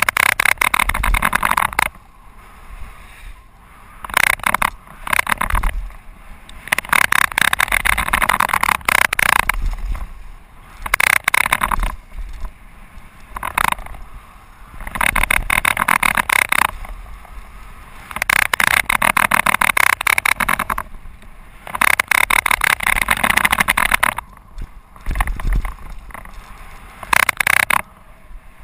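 Mountain bike running fast down a gravel trail: tyre rumble and rattling of the bike over the rough surface, coming in loud bursts a second or two long with quieter stretches between.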